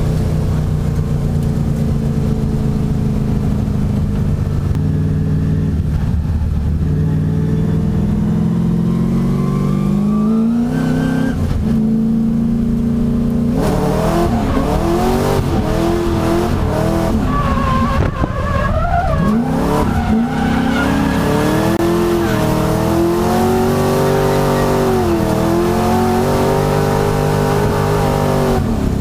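Nissan S13 and S14 drift cars running in tandem, their engines held at high revs and rising and falling in pitch as the drivers work the throttle, with tyres squealing as they slide.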